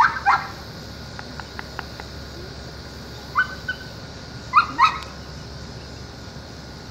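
A dog giving short, high-pitched yips in three quick pairs, with a few faint clicks between the first two.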